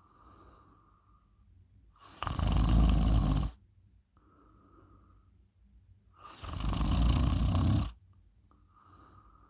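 A person snoring loudly in a slow rhythm: two loud, rough snores on the in-breath, each lasting about a second and a half and about four seconds apart, with much softer out-breaths between them that carry a faint thin whistle.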